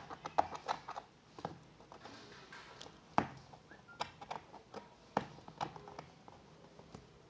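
Irregular light knocks, taps and rustles of a delivery parcel being handled, with a sharper knock about three seconds in.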